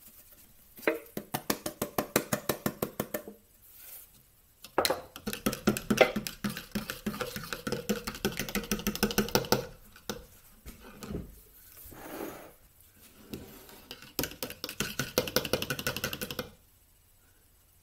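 A metal utensil briskly whisking a buttermilk-and-egg marinade in a plastic measuring jug: rapid rhythmic clicking against the jug's sides, about six strokes a second, in several spells with short pauses between.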